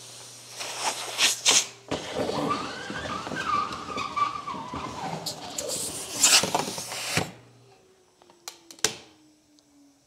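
Central vacuum system running with air rushing and whistling through the Chameleon retractable hose valve, which cuts off abruptly about seven seconds in. The power unit then winds down with a faint falling hum, and a few sharp clicks follow near the end.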